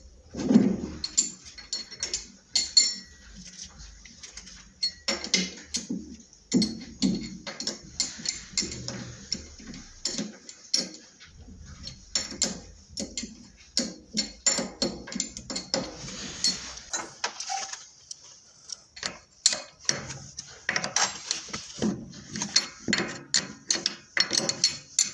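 Steel lathe chuck being fitted by hand onto the headstock spindle flange: many irregular metal clinks and clicks as the chuck body, the wrench and the mounting nuts knock together and are tightened.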